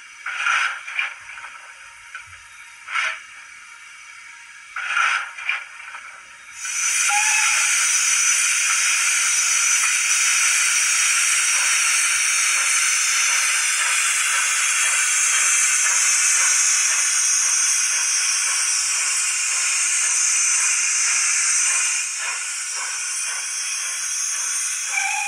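Recorded steam sounds from a Zimo sound decoder in a Bachmann Great Western prairie tank model, played through its small speaker: a few short hisses, then, about seven seconds in, a loud, steady hiss of steam that eases slightly near the end.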